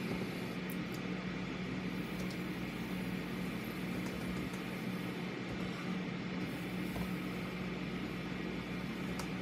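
Steady low hum with a constant hiss of room noise, and a few faint ticks.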